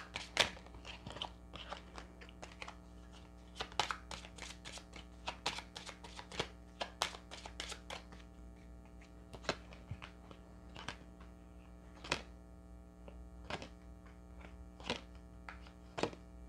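Tarot cards being handled and dealt onto a cloth-covered table: a string of short, irregular clicks and taps as cards are drawn from the deck and set down, over a steady low hum.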